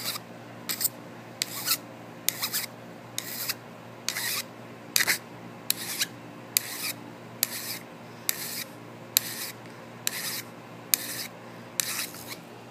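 Hand file drawn across the edge of a metal hinge in steady, even strokes, about one rasping stroke a second, cleaning up and shaping the edge.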